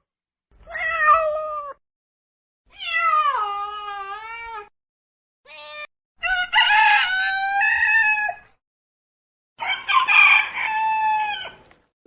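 A run of five separate animal calls cut together with silence between them: drawn-out cat meows and rooster crows. The calls last one to two seconds each, except a short one in the middle.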